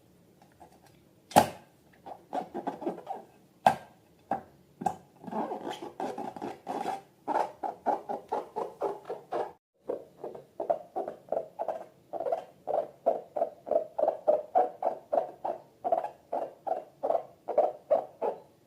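Slime being worked, a rapid string of short wet squelches and little pops, about four a second, with a brief break about halfway through.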